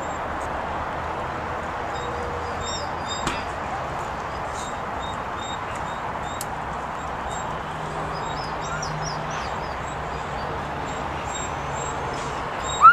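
Steady outdoor background noise with faint, scattered bird chirps, and a puppy's sharp yelp right at the end.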